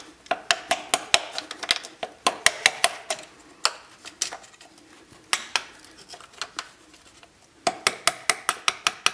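Sharp metallic taps and clinks of a screwdriver being knocked against the stuck red SCV (suction control valve) on a Toyota D-4D diesel's fuel pump to free it. The taps come in quick runs of about three a second at the start and again near the end, with a few single knocks between.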